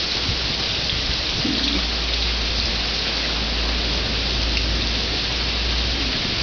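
Rain pouring down steadily in a thunderstorm, an even dense hiss with no break.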